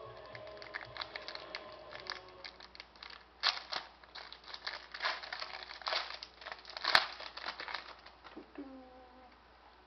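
Trading card pack wrapper crinkling as hands crumple it. There is a run of irregular sharp crackles from about three seconds in, and the loudest snap comes about seven seconds in.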